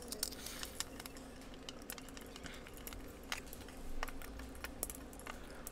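Faint small clicks and taps of metal PCB standoffs and needle-nose pliers against an acrylic plate as the standoffs are screwed in and tightened, over a faint steady hum.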